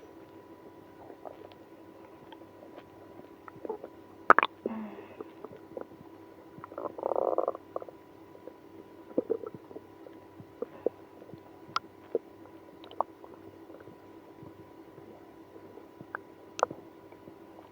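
Stomach growling in a person with IBS after drinking milk and prune juice. A short gurgle comes about four seconds in and a longer one of nearly a second around seven seconds, with scattered sharp little pops later on.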